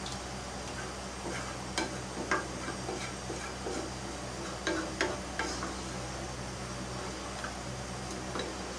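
A ladle stirring a thin, watery curry in a nonstick pot, with a few sharp taps of the ladle against the pot, most of them in the first two-thirds. A steady low hum runs underneath.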